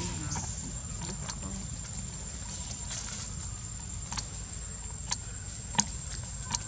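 Outdoor forest ambience: a steady low rumble and a thin steady high whine, with four sharp clicks or snaps in the second half. The snaps fit twigs and dry leaf litter under moving macaques.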